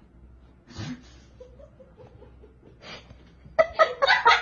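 A person laughing in quick repeated bursts, starting about three and a half seconds in.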